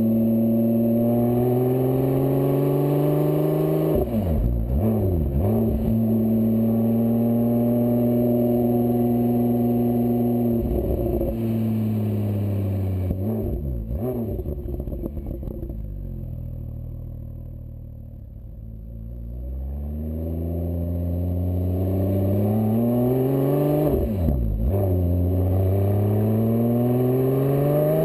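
Porsche 997 GT2 RS twin-turbo flat-six through a GMG World Challenge GT exhaust, heard right at the tailpipe while driving. The note climbs as the car accelerates, breaks sharply at gear changes three times, and around the middle drops to a lower, quieter note off the throttle before pulling up again.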